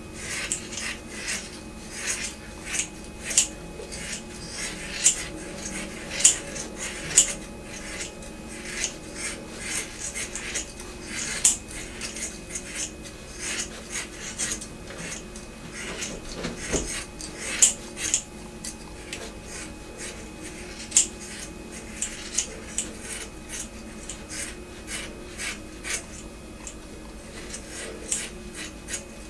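Scissors snipping through hair in a quick, irregular run of short cuts, about one or two a second.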